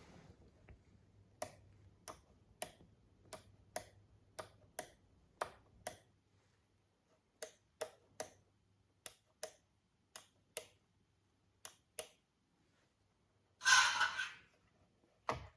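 Remote-control Volvo truck model being powered up: a run of sharp clicks, about two a second with a pause midway. Near the end comes a short hissing burst and a thump as its simulated sound system comes on.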